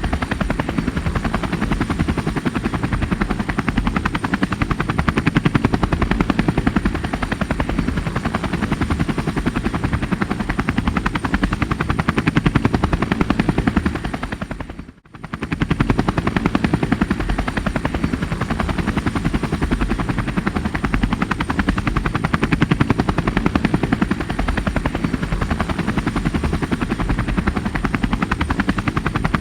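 Helicopter running steadily: fast, even beating of the rotor blades over engine noise, with a thin high whine on top. About halfway through the sound fades down nearly to nothing for about a second, then comes straight back.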